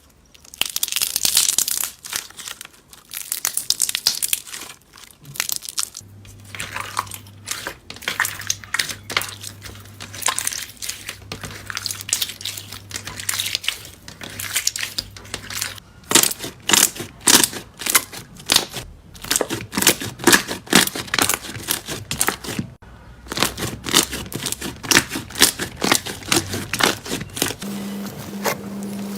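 Slime being squished and handled, giving dense, irregular crackling pops and clicks that grow thicker and louder after about halfway, with a short pause near the end.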